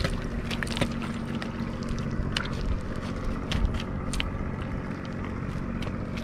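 Small boat's motor running steadily, with scattered light knocks and clicks over it.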